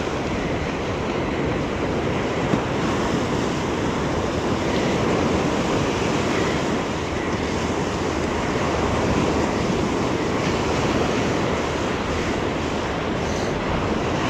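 Ocean surf washing onto a sandy beach in a steady, continuous rush, with wind on the microphone.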